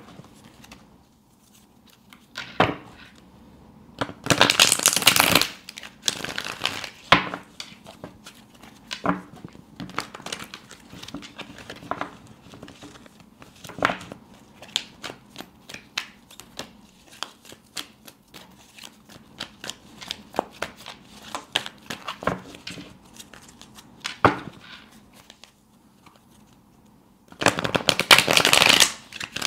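A deck of tarot cards being shuffled by hand: scattered soft taps and flicks of cards, with two longer rapid fluttering runs, one about four seconds in and one near the end.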